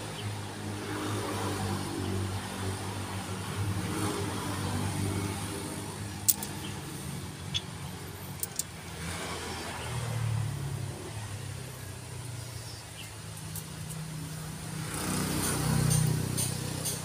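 A vehicle engine running steadily, swelling louder about ten seconds in and again near the end, with a few light, sharp metal clicks.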